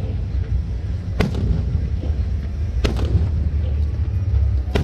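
Fireworks going off: three sharp bangs, spaced about a second and a half to two seconds apart, over a steady low rumble.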